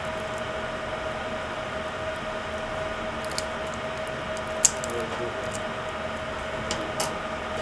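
A few light, sharp clicks of small laptop parts being handled and fitted back together, the loudest about halfway through, over a steady background hiss with a faint steady tone.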